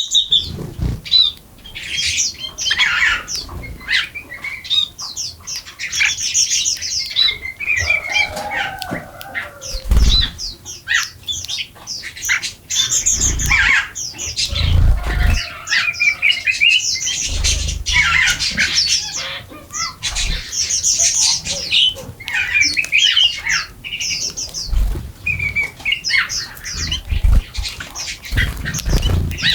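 A flock of small birds chirping and squawking continuously, many short rapid calls overlapping, with a few low thuds now and then.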